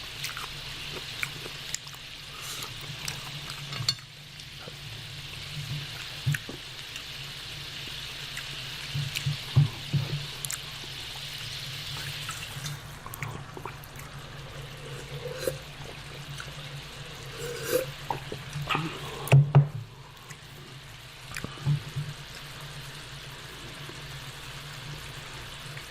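Noodles and broth sizzling and simmering in a hot electric deep skillet: a steady hiss that thins out about halfway through, over a steady low hum. Scattered clinks and small eating sounds come through now and then, the loudest pair about two-thirds of the way in.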